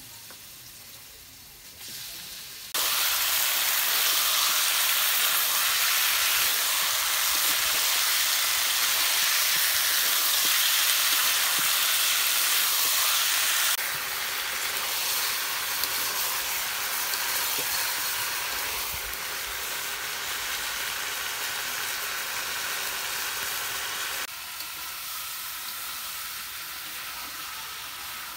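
Chicken pieces coated in a spice paste sizzling in hot oil in a wok. The sizzle starts suddenly about three seconds in, stays loud and steady, then settles lower about halfway through and again near the end.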